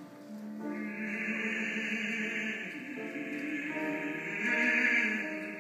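Operatic male singing over grand piano accompaniment, the voice ringing out strongly from about a second in and loudest near the end.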